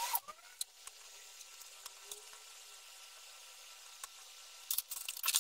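Soldering iron on the joints between the quad's motor wires and the ESC pads, with short bursts of sizzling from the melting solder and flux: one just at the start and a cluster near the end. A faint steady hiss lies under them.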